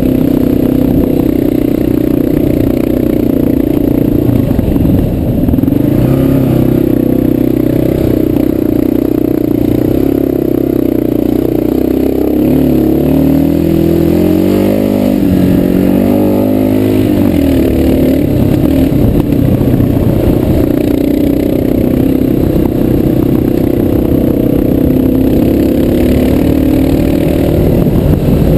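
Dual-sport motorcycle engine running under way on a dirt track. Its note is steady, then drops and climbs again about halfway through as the throttle is eased off and reopened.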